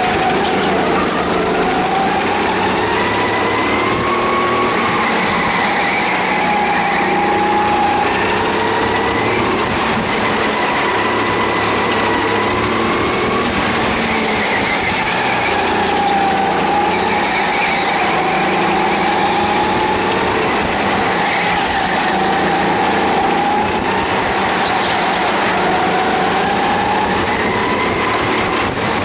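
Go-kart engine heard from on board the kart, running hard with its pitch rising and falling every few seconds as the driver lifts off and accelerates through the corners.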